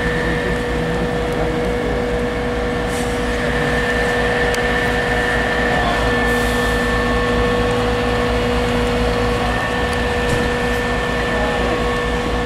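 Fire engine's diesel engine running at steady revs: a constant hum with a steady tone that does not rise or fall.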